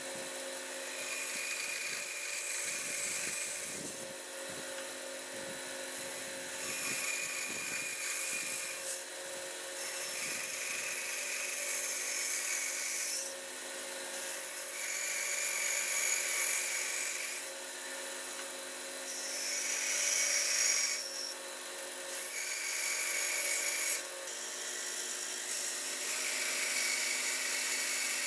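Bandsaw running and cutting through a wooden block, a steady motor hum with a higher whine that comes and goes every couple of seconds as the blade works through the wood in repeated cuts.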